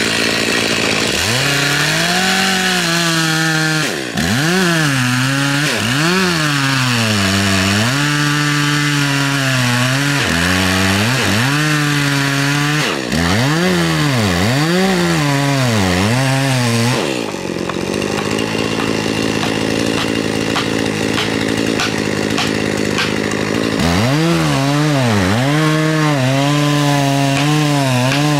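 Chainsaw cutting into Japanese cedar, its engine pitch repeatedly dropping and rising again every second or two. It runs at a steadier, lower pitch for several seconds past the middle, then the dips resume.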